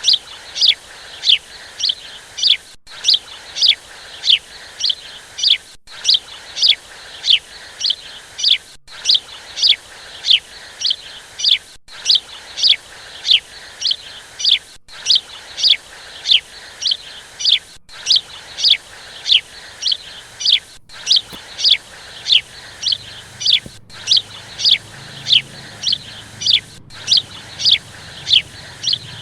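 A bird calling over and over, a short falling chirp about twice a second, with a brief break every three seconds or so.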